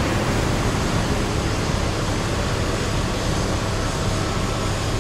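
Steady rush of water from a fire truck's aerial ladder nozzle spraying and falling onto the road, with a low steady hum of the fire truck's engine underneath.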